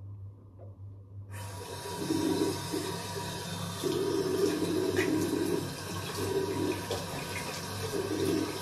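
Bathroom sink tap turned on about a second in and left running, a steady hiss of water splashing into the basin.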